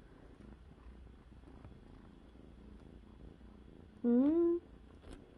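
Kitten purring quietly while being stroked. About four seconds in, a short rising hum from a person's voice.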